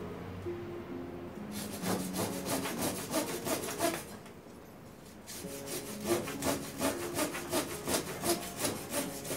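Hand pruning saw cutting through a jabuticaba bonsai branch with rapid back-and-forth strokes, about three a second. It comes in two bouts, with a short pause about four seconds in.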